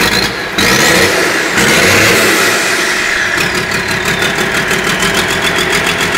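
Chevrolet Silverado engine, stripped of its body panels, running loud. It is revved up about half a second in and again near one and a half seconds, then settles back to a steady run.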